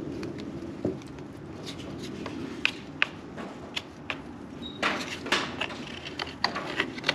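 A wooden stick scraping and tapping as thickened West System epoxy fairing compound is spread and pressed into a fibreglass crease. Scattered small clicks and scrapes, busier from about five seconds in.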